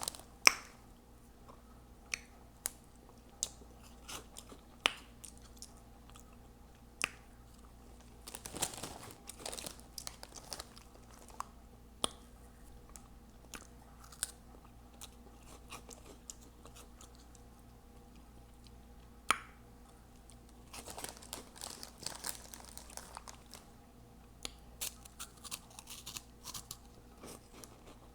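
Close-miked chewing of Hot Cheetos Puffs: sharp mouth smacks and clicks about every second, with denser stretches of crunching and wet chewing a third of the way in and again near the end.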